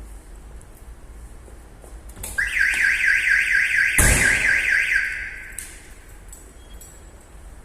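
Prestige X1 car alarm siren set off by a door being opened: a loud, fast electronic warble starts about two seconds in and is cut short about three seconds later when silenced from the remote. A sharp thump sounds partway through the siren.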